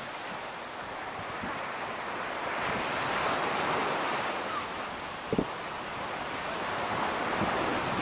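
Ocean surf breaking and washing up the beach, a steady rushing that swells and eases, with wind buffeting the microphone. A short sharp thump a little past the middle is the loudest moment.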